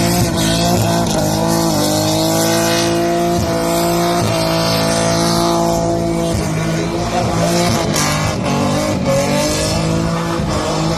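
Ford Barra inline-six in a burnout car held at steady high revs while the rear tyres spin and squeal in a burnout.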